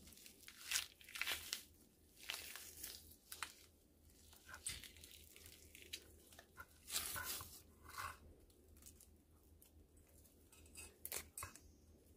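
Faint, irregular wet tearing and squelching as the innards are pulled out of a whole squid by hand.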